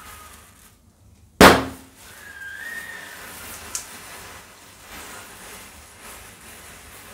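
A single loud firecracker bang about one and a half seconds in, dying away within half a second, over the low crackle of a matchstick chain burning. A short whistled call rises and falls a second later.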